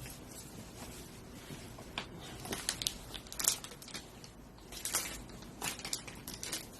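Irregular crinkling rustles and rubbing from handling cleaning tissues and wiping a phone case, the loudest bursts about midway through.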